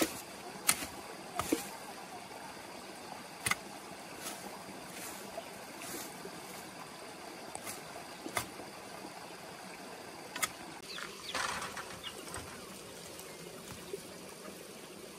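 Machete blade chopping through weeds into the ground: sharp, irregular chops, the loudest in the first few seconds, then a rustle of cut plants being handled about eleven seconds in, over a steady background hiss.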